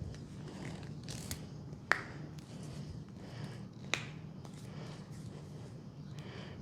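Sharp snaps from a leg massage, three of them: a faint one just over a second in, the loudest shortly after, and another about two seconds later, over a steady low hum.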